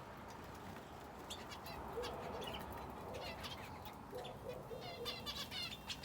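Small aviary birds (finches and a canary) chirping: scattered short high chirps, a quick run of repeated notes near the end, and a few lower calls in between.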